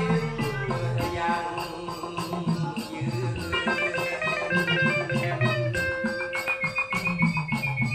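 Vinyl record of a Thai folk song playing on a turntable, in an instrumental passage between verses: plucked guitar with a shaker keeping an even beat.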